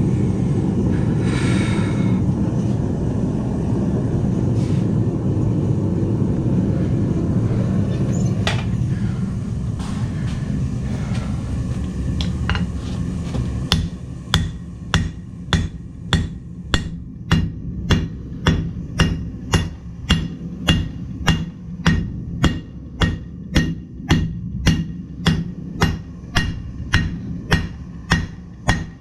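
A steady rushing forge noise with a few scattered clinks. From about halfway through comes a regular run of hammer blows on metal at the anvil, about three every two seconds, each with a short bright ring.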